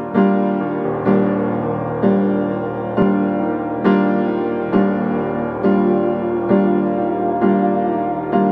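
Background piano music: slow, evenly spaced chords struck about once a second, each ringing and fading before the next.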